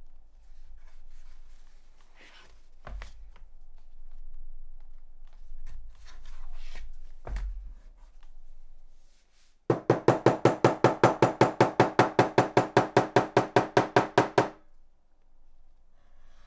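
Leatherworking at the bench: soft handling noises and two dull thumps, then about ten seconds in a loud, rapid, even knocking of about five strokes a second, with a ringing tone, that starts and stops abruptly after some five seconds.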